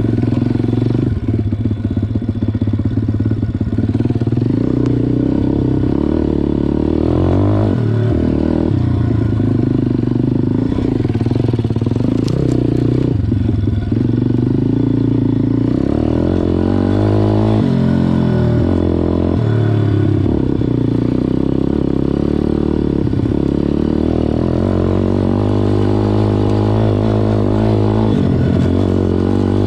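MRF 140 RC-Z pit bike's single-cylinder four-stroke engine running while riding, its pitch rising and falling again and again as the throttle is opened and closed.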